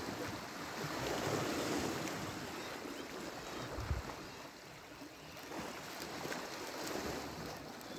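Sea washing against the rocks, a steady rushing that swells and eases, with wind buffeting the microphone and one brief low thump about four seconds in.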